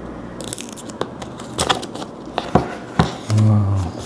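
Packaging being handled and worked open: a string of sharp clicks and crackles, then a brief low hum near the end.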